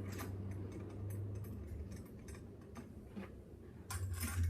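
Deadbolt mounting screws being driven by hand with a screwdriver: faint, irregular ticks and scrapes, with a brief louder clatter of clicks near the end.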